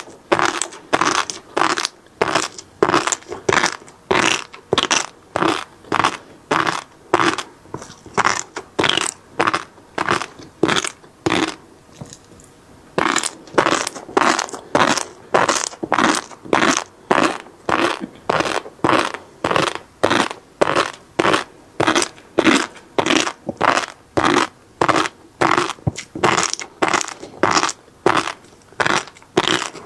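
Chewing flying fish roe (tobiko), the small eggs crackling and popping at about two chews a second, with one short pause near the middle.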